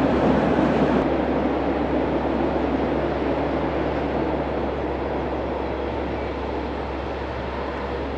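A real train running with a steady rumble and low hum that slowly fades as it moves away.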